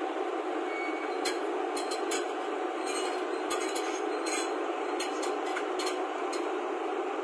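JCB crawler excavator's diesel engine running steadily, with a scattering of sharp metallic clinks from about one second in until shortly before the end.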